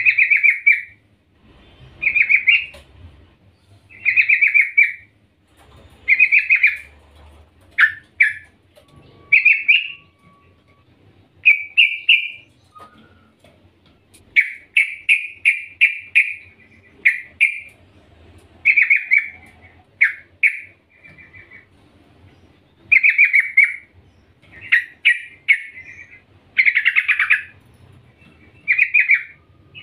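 Yellow-vented bulbul (trucukan) singing: short bubbly phrases of quick notes, repeated about every two seconds. It is presented as a female calling to a male, used to set males singing.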